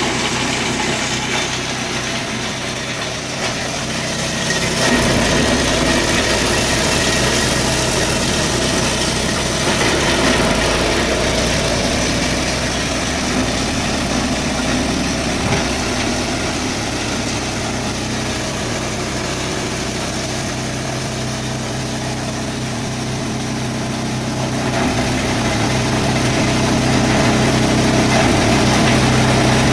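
G-20 multipurpose chopper-grinder running under load while grinding corn cobs: a steady engine drone with a dense grinding rush over it, growing louder about five seconds in and again near the end.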